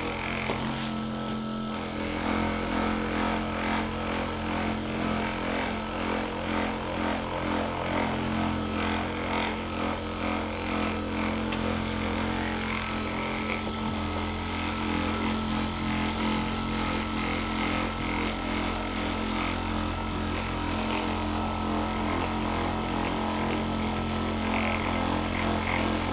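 Handheld electric massager running steadily, its motor hum holding one pitch while the loudness swells and eases slightly as it is worked in circles over the hip.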